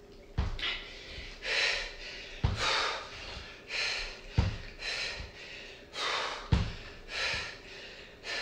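A woman's hard breathing during exercise, a sharp exhale about once a second. A dull thump about every two seconds as her foot comes down between single-leg knee drives.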